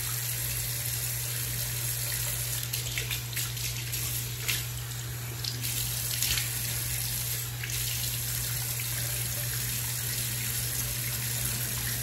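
Bathroom sink tap left running, a steady stream of water pouring into the basin.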